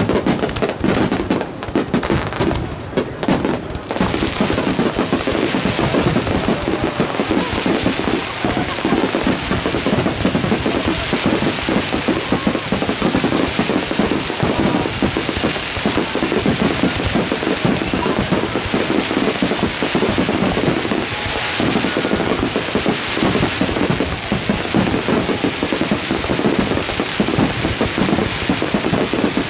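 A dense aerial fireworks barrage: many shells bursting in rapid bangs, with crackling stars. Separate bangs for the first few seconds merge into an unbroken crackle.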